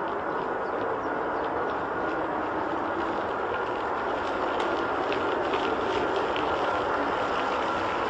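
Jet airliner engines running as a steady roar, with a faint whine that slowly falls in pitch.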